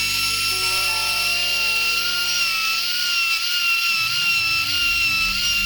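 Router with a 1/4-inch upcut bit running steadily while freehand-cutting a dado in maple, a high whine that wavers slightly in pitch as the bit loads. Background music plays underneath.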